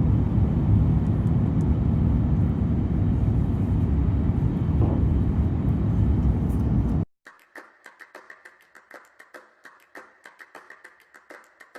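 Loud steady rumble of an Airbus A350-900's engines and airflow heard inside the passenger cabin, as on the takeoff roll and climb. It cuts off suddenly about seven seconds in, leaving faint rapid clicking.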